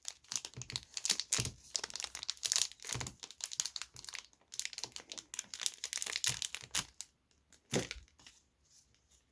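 Crinkling and rustling of a Pokémon card pack's wrapper and cards being handled, a dense run of crackles for about seven seconds, then one last sharp rustle near the end.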